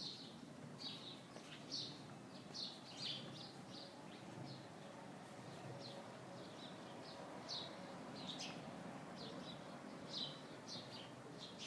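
Birds chirping: many short, high chirps in irregular clusters, over a steady low background noise.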